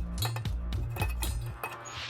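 Background music with a stepping bass line and a regular beat; the bass drops out near the end under a rising cymbal-like swell.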